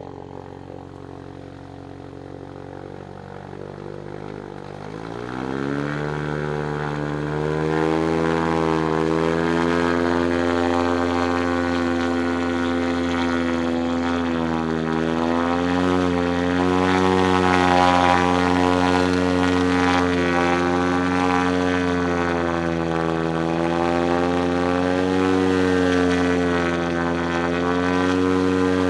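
A Lake amphibian's pylon-mounted pusher engine and propeller, heard from the cockpit. The engine runs up about five seconds in, rising in pitch and loudness, then holds steady at high power with a slight waver as the aircraft drives out of the water and up the grass bank.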